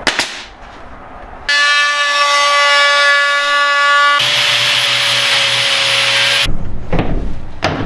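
Angle grinder running at speed with a steady high whine, starting abruptly about a second and a half in. About four seconds in its disc meets the cedar boards and a rough grinding hiss joins the whine, and then it stops suddenly.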